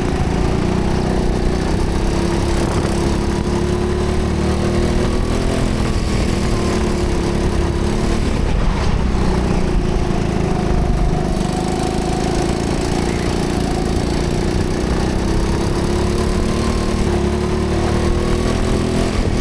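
Go-kart engine running hard, heard from the driver's seat, its pitch falling and rising as the throttle is worked through the corners.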